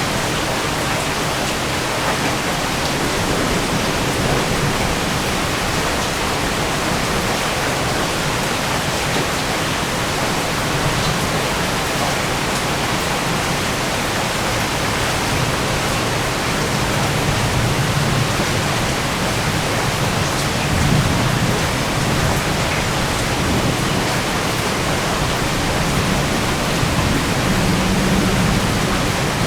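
Heavy thunderstorm rain pouring steadily, a dense even hiss. Low rumbles of thunder swell now and then in the second half.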